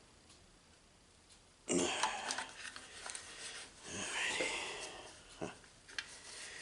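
Hands working a rubber fuel-tank grommet into a small engine's fuel tank: irregular rubbing and scraping with a brief squeak of rubber, then a couple of sharp clicks near the end.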